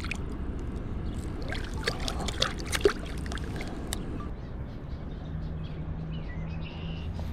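Water splashing and dripping, with a few sharp splashes about two to three seconds in, over a steady low rumble of moving water.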